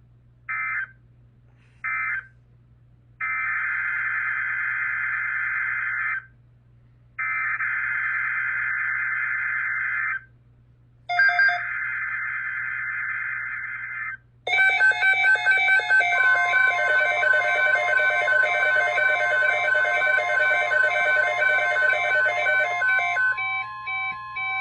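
Emergency Alert System tones. First come two short data bursts, then three longer SAME header data bursts about a second apart. Then a steady alert tone starts, with a stepping electronic alarm beeping over it, and the alarm fades near the end.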